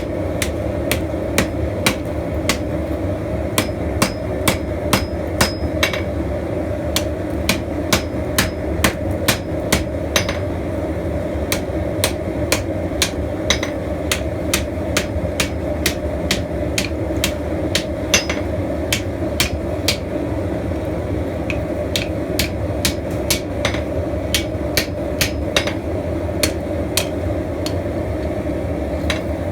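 Blacksmith's hand hammer striking hot steel on an anvil, forging a spear, in a steady rhythm of about two to three blows a second with a few short pauses; some blows ring. A steady rushing noise runs underneath.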